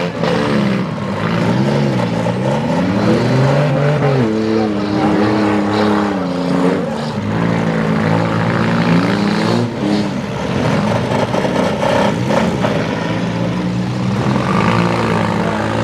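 Several front-wheel-drive derby car engines revving up and down at once, with a few sudden impacts of cars hitting each other.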